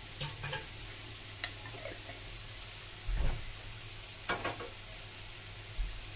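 Grated carrot and onion frying in butter with a steady sizzle. A spoon knocks and scrapes against the pan a few times, loudest about three seconds in, with a low thump.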